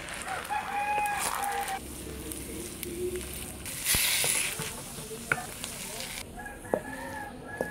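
Glutinous rice in coconut milk sizzling in a stainless steel pan while a wooden spatula stirs and scrapes it, with a few sharp taps of the spatula on the pan. The sizzle is louder for a couple of seconds in the middle. The thickened mixture is starting to pull away from the pan, the stage at which it is nearly cooked down.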